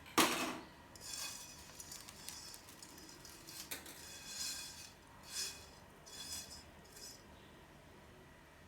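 A kitchen utensil knocks once against cookware, then scrapes it in about six short strokes over the next several seconds.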